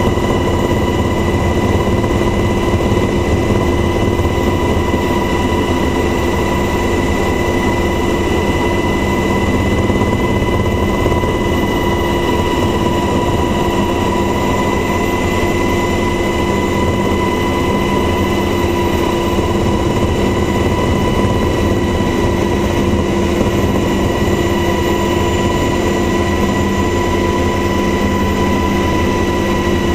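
Steady helicopter noise heard from inside the cabin: a constant engine whine over an even, low rumble of engine and rotor.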